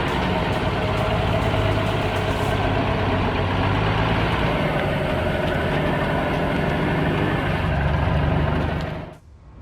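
Diesel engine of a heavy logging truck running steadily under load, a deep engine hum with mechanical noise over it. It cuts off abruptly near the end.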